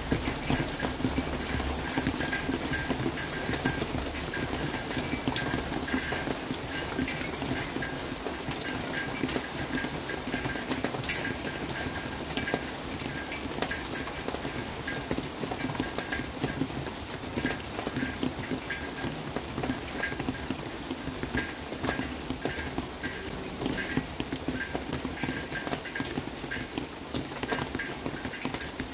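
Rain falling steadily, with irregular drips tapping on a hard surface.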